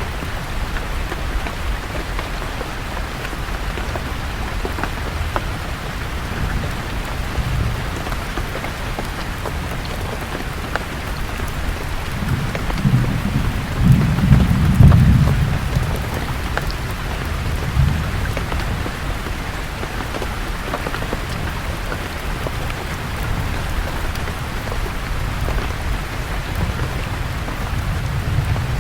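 Steady rain falling on forest leaves, with fine individual drops ticking through it. A low roll of thunder swells in about halfway through, loudest for a couple of seconds, then fades out with a smaller rumble after it.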